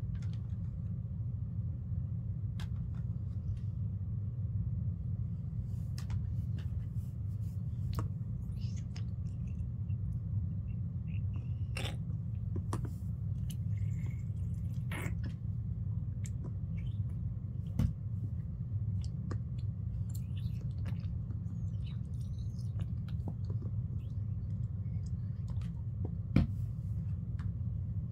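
Small plastic clicks, taps and handling noises as a toy spoon and bottle are worked against a doll's mouth, with two sharper knocks, one midway and one near the end. A steady low hum runs underneath.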